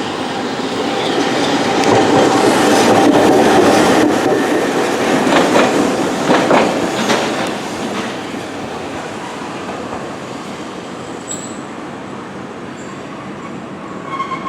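Hankai Tramway tram car 607 running on street-tramway track, its wheels clicking over rail joints. The sound is loudest a few seconds in, then fades away after about seven seconds, with a few faint high squeals near the end.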